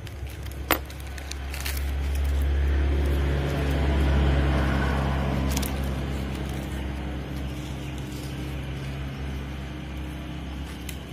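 An engine running steadily, swelling louder about two seconds in and then slowly fading, with a sharp click under a second in.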